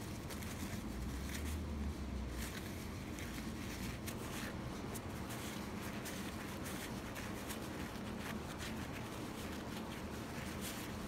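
Light handling noise, scattered faint clicks and rustles, over a steady low room hum.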